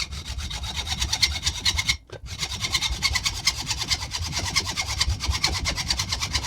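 Fast, even back-and-forth strokes of a hand tool cutting or rasping the metal of an old cast-iron door closer, worked by hand because the flammable hydraulic oil inside rules out an angle grinder. There is a short break about two seconds in, then the strokes resume.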